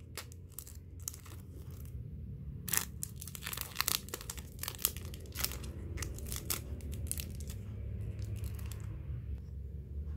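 Thin clear plastic wrapper around a set of photocards being torn open and peeled off: a run of sharp crinkles and crackles for several seconds in the middle, thinning out near the end.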